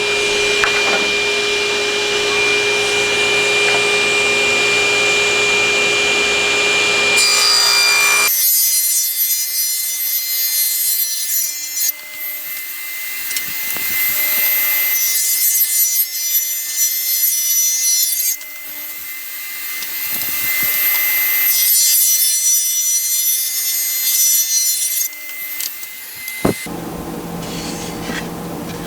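Table saw running through wood for about eight seconds, then cutting off abruptly. After that come three stretches of high-pitched hissing, a few seconds each, and a single click near the end.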